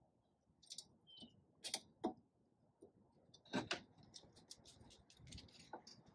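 Faint scattered clicks and light metallic ticks of the wheel cylinder's mounting bolt and brake parts being handled at a 2015 Chevrolet Spark's rear drum brake backing plate, as the bolt is fitted back by hand. A quicker run of small ticks begins about four seconds in.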